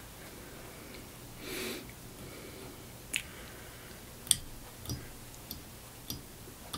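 Quiet handling sounds of fly tying: a soft rustle and several small, sharp ticks as thread is wrapped around a hook in the vise with a bobbin holder.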